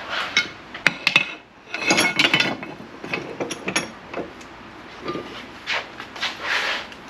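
Hand tools and hard objects being picked up and set down: an uneven series of clicks and knocks with some scraping.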